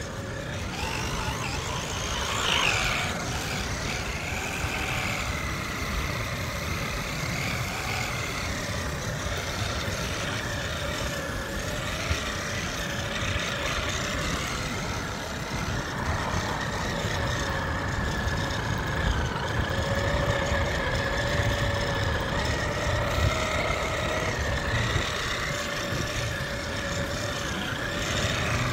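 Radio-controlled model car driving, its motor whine rising and falling in pitch with the throttle over a steady low rumble.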